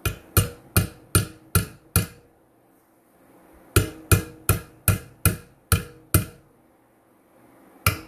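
A small hammer striking the metal of a homemade valve spring compressor seated on a valve spring, in quick runs of about six or seven ringing metallic taps, roughly two and a half a second. There is a pause of a second and a half after the first run, and a new run begins at the very end.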